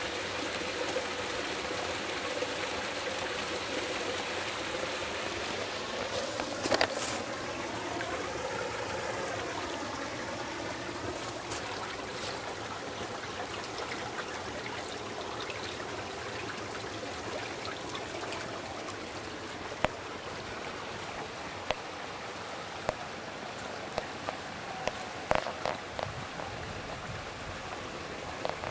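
Water from the spouts of a stone fountain splashing steadily into its trough and running off along a channel. A few sharp knocks cut through it, one about seven seconds in and several more in the last third.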